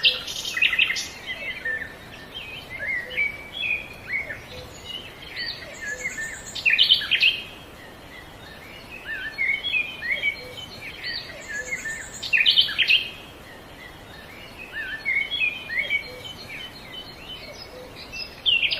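Birds chirping: many short, overlapping calls and quick pitch glides, with louder flurries about seven and thirteen seconds in.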